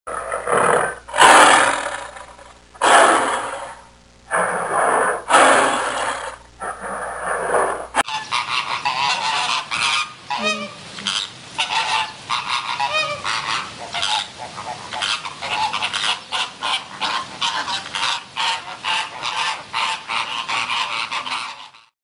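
Tiger calling in about six loud, breathy bursts, then, after a sudden cut about eight seconds in, a flock of flamingos honking in rapid, overlapping calls.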